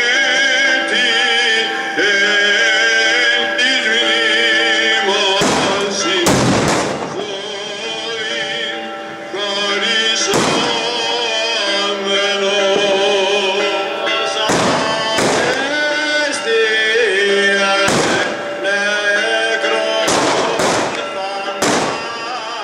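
Fireworks and firecrackers going off: about a dozen sharp bangs at irregular intervals, some in quick pairs and clusters, over continuous music.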